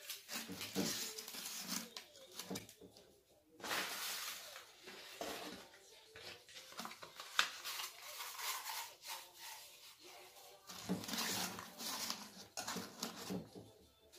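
Paper scrolls rustling and crinkling in irregular bursts as they are handled, unrolled and rolled up again by hand.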